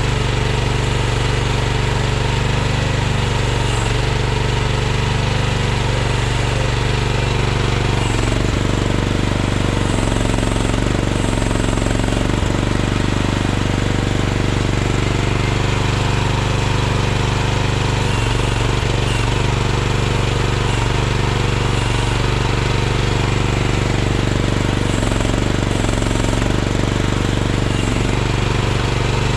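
Chinese mini excavator's small Briggs & Stratton engine running steadily, with a rattly note. Its pitch dips briefly about a dozen times as the hydraulics take load while digging.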